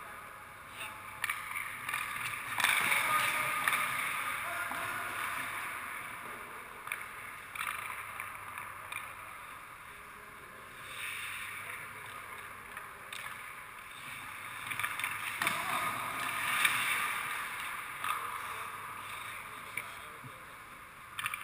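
Hockey skate blades scraping and carving on rink ice, in two swells, a few seconds in and again about two-thirds through, with a few sharp clacks of sticks and pucks.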